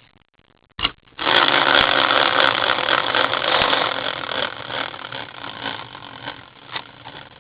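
A prize wheel spun by hand, its pointer clattering rapidly over the pegs and then fading as the wheel slows to a stop.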